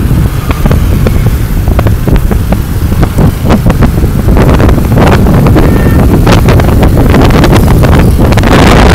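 Heavy wind buffeting and crackling on the microphone of a camera riding on a moving motorbike, with a steady low rumble of the motorbike and the traffic around it underneath.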